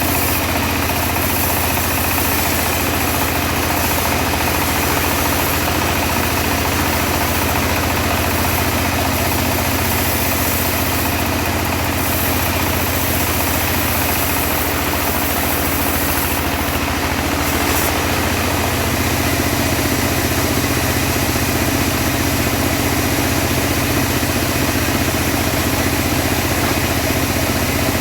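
Engine-driven homemade portable bandsaw mill running steadily while ripping teak: a constant engine drone under a wide hiss of the blade, growing slightly louder about two-thirds of the way through.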